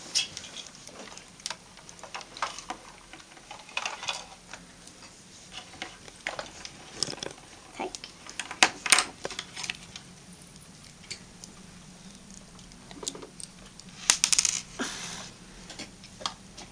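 Small plastic clicks and taps as Playmobil figures are handled and set down on a tabletop, coming irregularly, with louder clusters about nine seconds in and again about fourteen seconds in.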